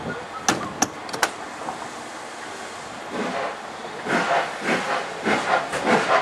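Steam-hauled train of coaches pulling away. About half a second in there are three sharp clanks as it starts to move. From about three seconds in, the locomotive's exhaust chuffs begin, getting louder and quickening.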